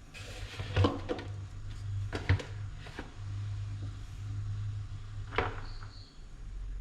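Kitchen items being handled and set down on a counter: a handful of light knocks and clatters spread across a few seconds, over a low hum.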